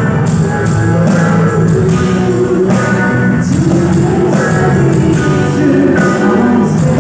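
Live rock band playing, electric guitar prominent over bass and drums, with what may be a sung melody line.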